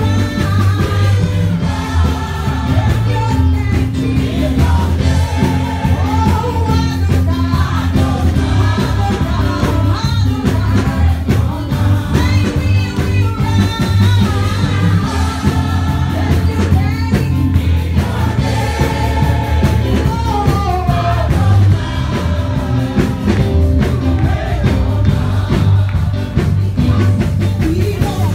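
Live gospel praise music played through a PA: a lead vocalist singing into a microphone over a band with a heavy, steady bass line.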